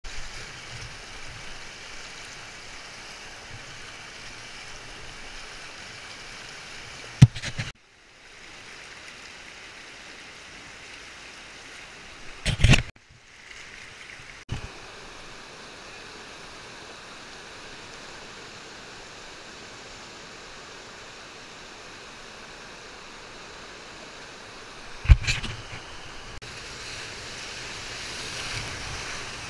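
River whitewater rushing steadily around a kayak, growing a little louder near the end as the boat enters bigger waves. Three sharp knocks stand out, about a quarter of the way in, near the middle and near the end.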